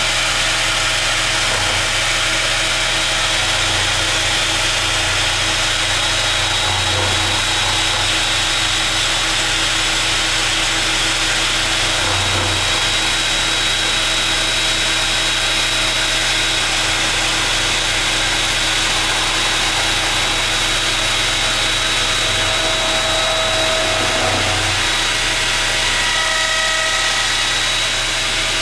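Electric router on a homemade router-lathe copier running steadily, its bit cutting a turning post of rough, green spruce 4x4. It is a steady high whine over a loud rushing noise with no breaks.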